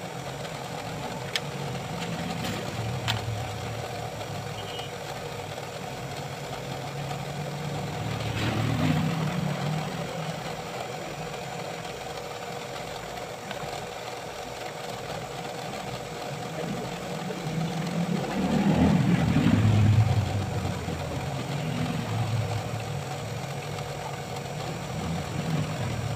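A motor vehicle engine running in the background: a steady low rumble that swells up and dies away twice, about eight seconds in and again, louder, around twenty seconds, as if vehicles are passing by.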